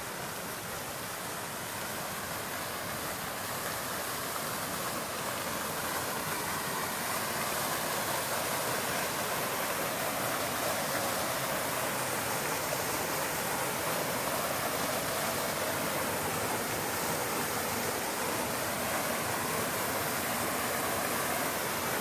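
Waterfall plunging into a pool, a steady rush of falling water. It grows louder over the first several seconds as the microphone comes closer, then holds steady.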